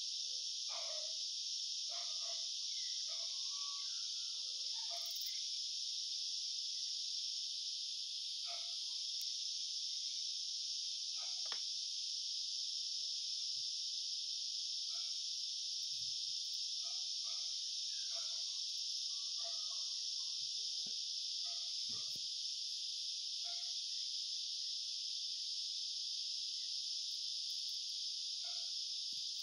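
A steady, high-pitched insect chorus from the surrounding trees, with scattered short animal calls over it.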